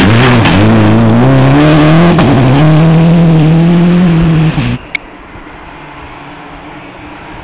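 Rally car engine at full throttle as the car accelerates away, its pitch climbing and dropping back with each upshift, then holding high. The loud engine sound cuts off abruptly about two-thirds of the way in, leaving only a faint outdoor background.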